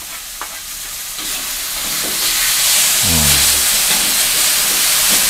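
Balado spice paste frying in hot oil in a pan, a steady sizzle that grows louder about a second in and again a little after two seconds.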